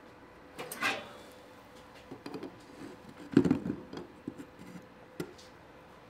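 Metal handling clatter as the heat-treat furnace door is unlatched and swung open and tongs grip the hot steel crucible: a short scrape about a second in, one loud clank a little past three seconds in, then several lighter clicks and knocks, over a faint steady hum.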